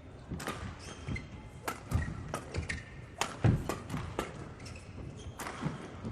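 Badminton rally: a string of sharp racket strikes on the shuttlecock mixed with players' footsteps and short shoe squeaks on the court floor. The loudest thud comes about three and a half seconds in.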